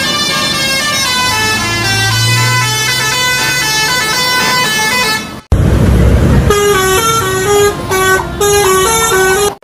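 Indonesian bus 'telolet' musical horns playing quick melodies of stepping notes. About five and a half seconds in, the sound cuts abruptly to a brief loud rush of noise and then a second horn tune that repeats a short figure of notes.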